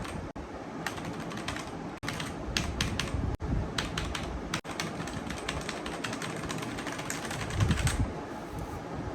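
Keys clacking on a Kreo mechanical keyboard with tactile brown switches: irregular typing strokes, densest in the middle, with a couple of low thuds from handling on the desk.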